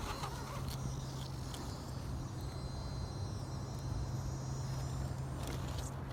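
Axial SCX10 Deadbolt RC crawler's electric motor and gear drivetrain running slowly under load as the truck crawls up a rock, a steady low hum.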